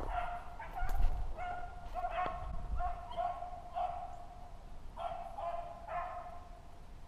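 Beagles baying while running rabbits: a steady string of short, repeated hound calls, about two a second, the sound of the pack on a rabbit's trail. A brief thump comes about a second in.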